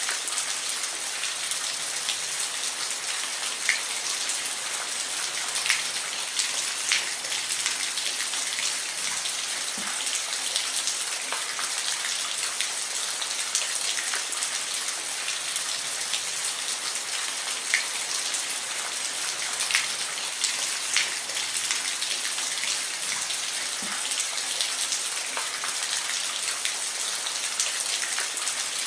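Steady rain, with a constant hiss and many distinct drops pattering on a surface.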